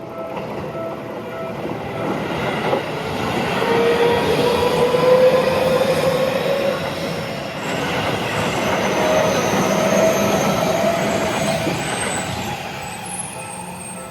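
Seibu 30000 series electric commuter train passing. Its running noise builds, stays loud through the middle and fades near the end, with a faint whine rising slightly in pitch from about four seconds in.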